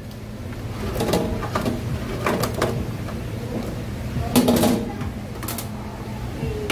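Stainless-steel steamer frame and perforated metal sheet knocking and scraping against a stainless counter as they are lifted off a slab of freshly steamed rice cake: several separate clanks over a steady low hum.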